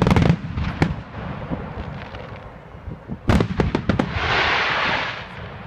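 Fireworks going off: a few sharp bangs at the start, quieter crackling, a quick cluster of bangs about three seconds in, then about a second of loud hissing.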